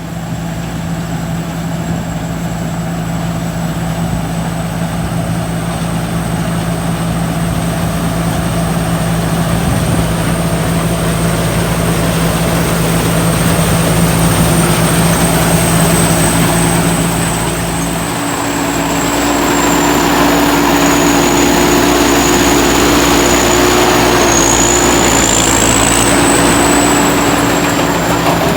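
Combine harvester engine running steadily, with a thin high whine above it. About 18 seconds in the sound dips briefly, then picks up again with a new tone added.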